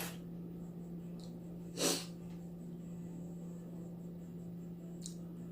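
A single short, sharp breath through the nose, a sniff, about two seconds in, over a steady low hum.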